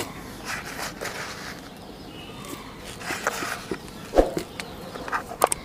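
Handfuls of dry grain feed (broken maize, wheat, rice bran) dropped by hand into a metal tin, rattling and rustling against the metal, with a few sharper clicks in the second half.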